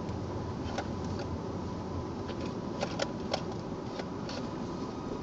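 Car cabin noise while creeping in traffic on a wet road: a steady low hum from the engine and tyres, with a few sharp clicks scattered irregularly through it.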